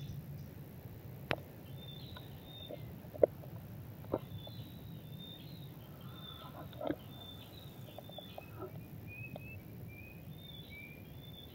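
Forest birds calling, a long run of short high chirping notes repeated every half second or so. A few sharp knocks sound over them, the loudest about three seconds in, against a low steady rumble.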